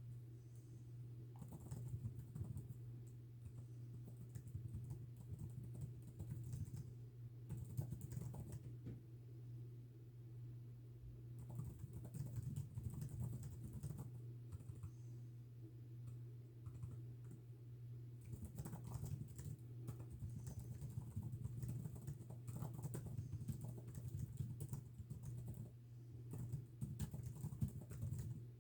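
Typing on a computer keyboard: bursts of rapid keystrokes with pauses between them, over a steady low hum.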